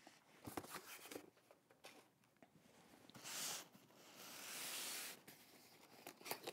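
Faint handling of cardboard boxes and packing tape: a few light knocks, then two rasping scrapes, a short one about three seconds in and a longer one just after.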